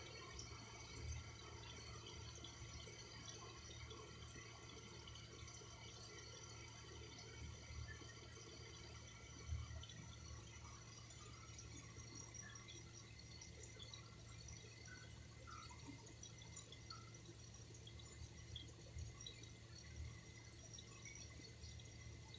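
Faint water dripping and trickling, with scattered small drips over a steady low hum.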